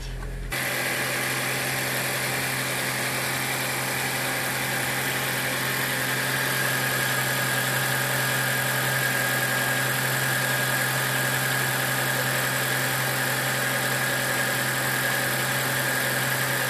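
Toyota Camry Hybrid's 2.5-litre A25A-FXS four-cylinder engine idling steadily, held running in maintenance mode, with a faint steady high whine over it.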